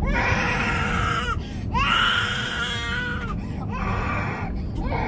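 A toddler crying and wailing in four long, drawn-out, high-pitched cries, over a steady low rumble.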